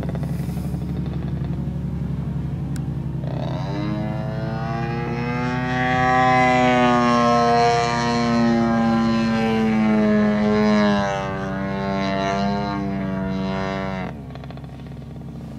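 Engine of a radio-controlled Katana aerobatic model airplane buzzing overhead. It swells in, its pitch shifting up and down as the throttle changes, then cuts away suddenly a little before the end, over a steady low hum.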